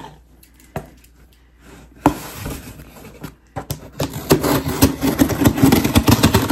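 Scissors cutting along the packing-tape seam of a cardboard shipping box to open it, with a couple of knocks against the box first, then a dense, scratchy crackle of blade, tape and cardboard through the last couple of seconds.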